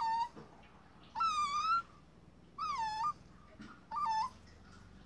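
Puppy giving four high-pitched whining cries, each under a second long and about a second apart; the longest, about a second in, rises slightly in pitch, while the others drop at the end.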